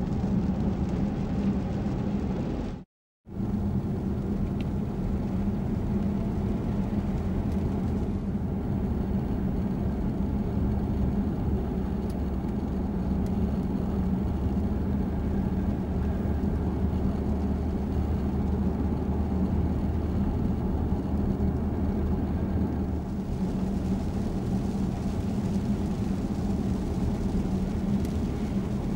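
Steady in-cabin driving noise of a BMW 6 Series Gran Turismo cruising at constant speed: a low engine hum and road rumble. The sound cuts out for a moment about three seconds in.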